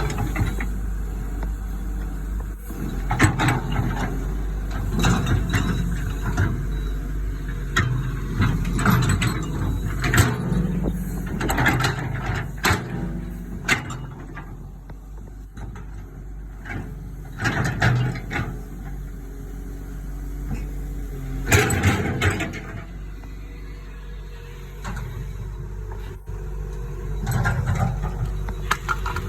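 Cat 315 LC excavator's diesel engine running steadily while it works, with repeated clanks and scrapes as the machine moves dirt over a drain pipe; the loudest clank comes about three quarters of the way through.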